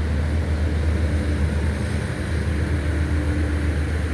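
Steady low vehicle engine hum with road noise, unchanging throughout.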